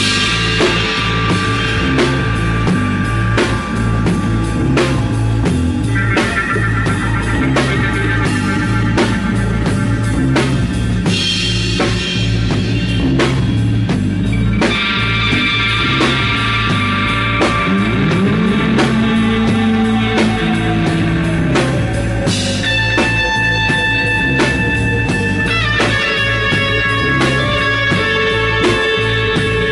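Live rock band playing an instrumental passage: electric guitar over a drum kit and bass, with a steady beat. In the middle, a long note slides down in pitch.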